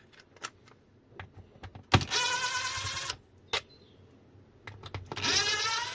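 Cordless drill-driver with a T20 Torx bit backing screws out of a plastic battery case: two runs of motor whine about a second each, the second rising in pitch as it spins up, with light clicks and taps between.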